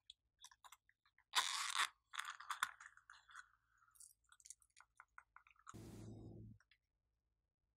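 Small foam beads tipped out of a plastic container onto glossy slime: scattered clicks and crunchy crackles, loudest about a second and a half in, then a short rushing noise about six seconds in.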